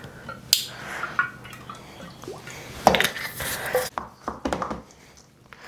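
A spoon knocking, clinking and scraping against a bowl while bulgur wheat is mixed with oil and paste. There is a cluster of sharp knocks about three seconds in.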